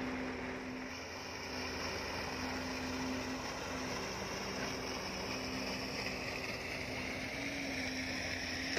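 Heavy diesel engine running steadily, a constant low hum over an even rushing noise.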